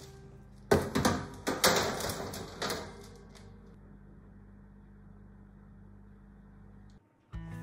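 Metal baking tray clattering and scraping as it is slid onto an oven rack: a handful of sharp knocks over about two seconds, followed by a low steady hum.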